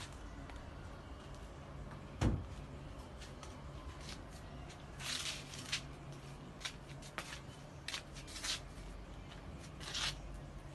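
Scattered short rustles and scrapes, with one sharp low thump about two seconds in and a few brief hissy rustles later on.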